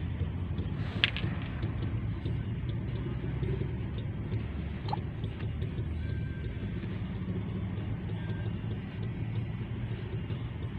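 Steady low rumble of a vehicle's engine and tyres heard from inside it as it rolls slowly, with one sharp click about a second in.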